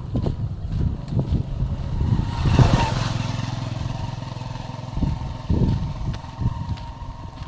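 A motorcycle engine running as it passes close by. It is loudest about two and a half seconds in, then fades away.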